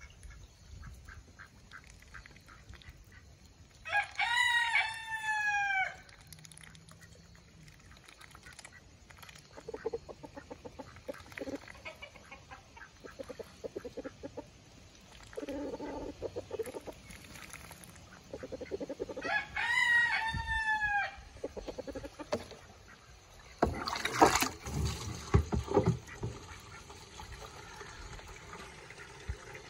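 A rooster crows twice, about fifteen seconds apart, each crow a long call in several rising-and-falling pieces. Between the crows ducks give low chattering quacks, and about 24 seconds in there is a sudden loud noisy burst.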